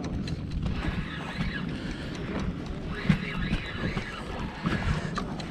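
Wind buffeting the microphone and water slapping against a kayak hull, with scattered light clicks and knocks throughout.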